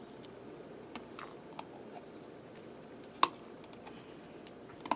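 Metal spoon scooping thick mayonnaise out of a glass jar into a ceramic bowl: soft scraping with a few small clicks, and one sharper clink about three seconds in.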